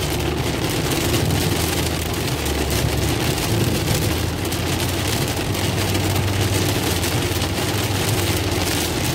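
Heavy rain falling on a moving car's windshield and roof, heard from inside the cabin, over a steady low rumble of road and engine noise.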